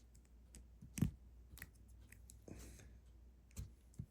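Lego plastic bricks being handled and pressed together: a scatter of sharp plastic clicks, the loudest about a second in, with a brief rustle around two and a half seconds in.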